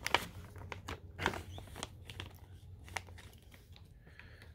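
Clear plastic packaging rustling and crinkling in the hands as a magnetic holster is unwrapped, with sharp crackles at the start and about a second in, then softer rustling.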